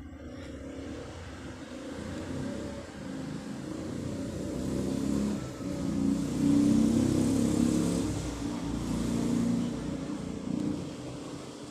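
A motor vehicle's engine passing, growing louder to a peak about two-thirds of the way through, then fading away.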